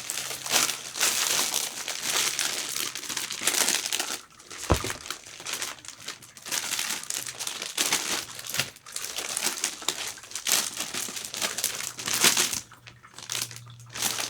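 Thin crinkly wrapping being handled, rustling and crinkling in irregular bursts, with short pauses about four and thirteen seconds in and a single sharp click near five seconds.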